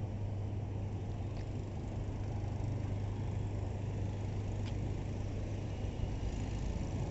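A steady low hum over a low rumble, with two faint ticks.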